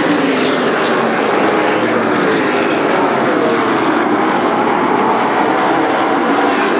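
A field of Outlaw Super Late Model race cars circling the oval, their V8 engines running loud and steady as one blended roar of several engines.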